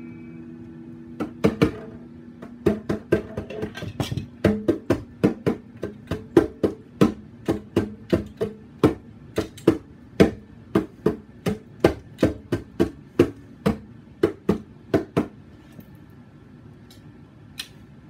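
Percussive hits on an electric guitar, played as drums: a steady beat of sharp knocks, about three a second, starting about a second in and stopping near 15 seconds, over a low guitar note left ringing at the start.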